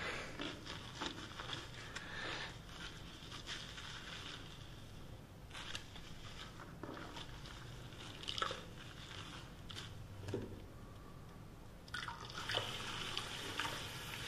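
Wet squishing, crackling and dripping of a hair wash: lather being worked through wet hair. It quietens for a while in the middle and picks up again near the end.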